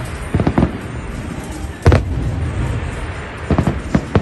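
Aerial fireworks bursting overhead in a string of sharp bangs: two close together about half a second in, the loudest just under two seconds in, and a quick run of three near the end, all over a steady background din.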